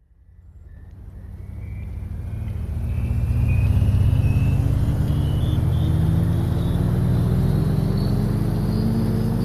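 A motor or engine running, fading in over the first few seconds and then steady, with a faint whine that slowly rises in pitch.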